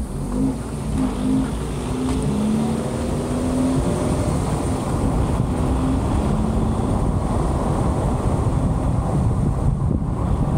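Car driving along a road: a steady rumble of road and wind noise, with an engine note that rises in pitch in the first few seconds as the car speeds up.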